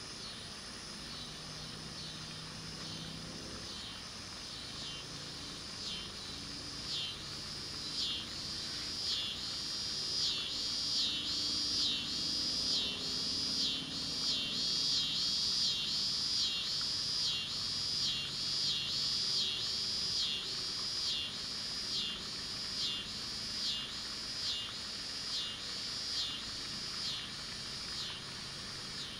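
An insect calling outdoors in a steady series of short, high, raspy pulses, about three every two seconds, growing louder over the first several seconds and easing off toward the end, over faint evening ambience.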